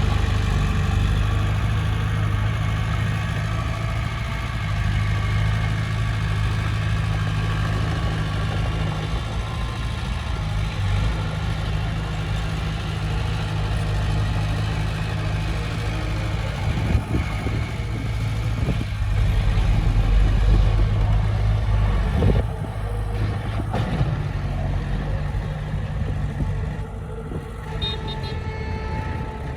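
Diesel engine of heavy earthmoving equipment running steadily under working load, with a few short metallic clanks about two-thirds of the way through.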